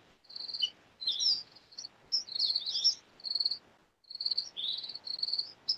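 Insects chirping in short, high, repeated trills, with a few bird chirps mixed in.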